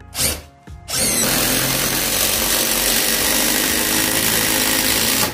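Keyang ID18BLA 18 V cordless impact driver driving a long screw into stacked wood boards. A short burst at the start, then from about a second in the impact mechanism hammers steadily and loudly until it stops suddenly near the end.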